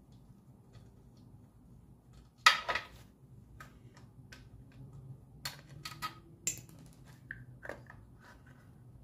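Metal hand tools clinking and clattering against the open crankcase of a Predator 212 engine, with one sharp loud clatter about two and a half seconds in, then a scatter of lighter clicks and clinks.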